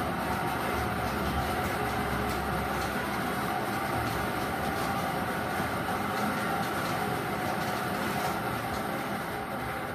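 Bingo blower machine running steadily: the air blower hisses while the bingo balls rattle and click against the wire globe as the air tosses them about.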